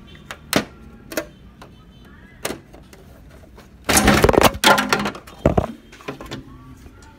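Plastic parts of a laser printer being handled: a few separate clicks and knocks, then a loud burst of clattering and rattling about four seconds in, with one more knock shortly after.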